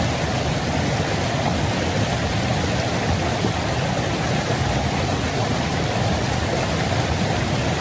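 Steady rushing of river water tumbling over rocks at the falls.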